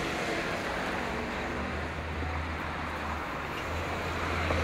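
Outdoor city ambience: a steady low engine rumble from passing motor traffic over a wash of distant noise, the rumble swelling slightly in the second half.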